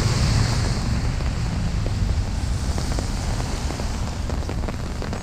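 Wind buffeting the microphone with an uneven low rumble, over the hiss of tyres on a wet street that fades away about a second in.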